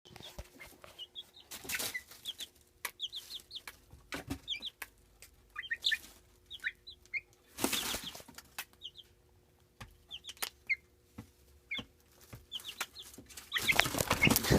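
Baby chick peeping in short high chirps, mostly in pairs, with a few short sharp noisy bursts that are the sick chick sneezing.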